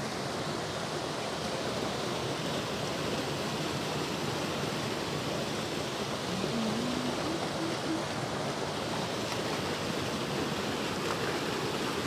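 Steady rushing of a small waterfall spilling over rocks into a natural pool.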